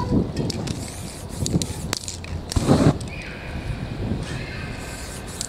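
Spray painting by hand: clicks and knocks of aerosol cans and tools on the canvas, with short hisses of spray. There is one louder burst of noise about two and a half seconds in.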